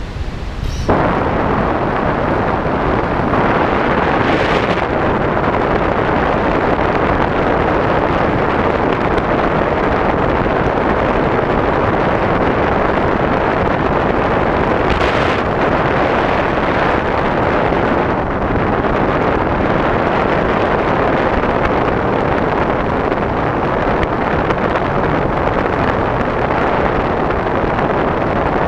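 Wind rushing over the microphone of an RC plane's onboard camera in flight: a steady, loud rush of air noise that steps up about a second in, with brief stronger gusts around four and fifteen seconds in.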